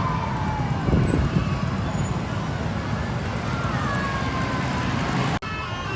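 Bus 'telolet' musical air horn sounding in gliding, siren-like tones over a steady low rumble. The sound breaks off suddenly near the end.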